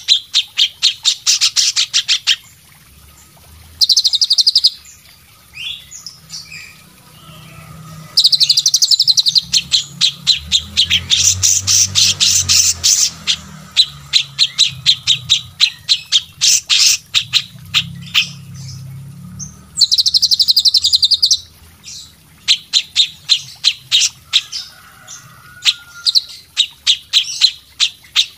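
Cage songbirds from a mixed song recording of cililin, cucak cungkok, kapas tembak and cucak jenggot. They sing in bursts of rapid, high chipping trills lasting one to five seconds, with scattered single chirps between the bursts.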